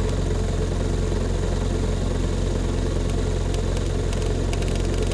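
Homemade three-coil brushless DC motor running steadily at about 1,300 rpm under electronic commutation, a constant hum with faint clicks in the second half.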